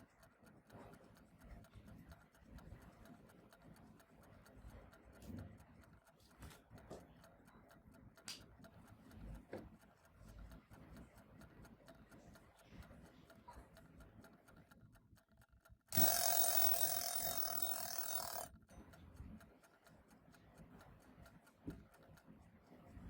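Clock ticking softly and steadily. About two-thirds of the way through, a loud ring lasting about two and a half seconds breaks in and fades slightly before it stops.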